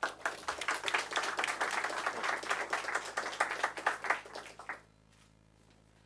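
A small crowd applauding, a dense patter of hand claps that dies away just under five seconds in.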